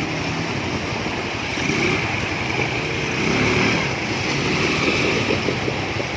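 ATV engine running steadily, its pitch wavering a little and swelling slightly about three and a half seconds in.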